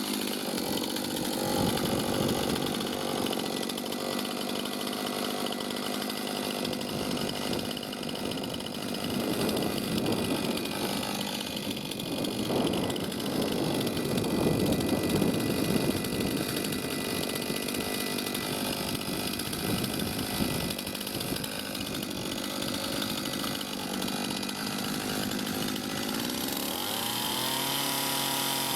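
Chainsaw cutting into a log along a scribe line, its engine running under load with an uneven, varying tone. Near the end the cutting stops and the saw settles into a steady, even running tone.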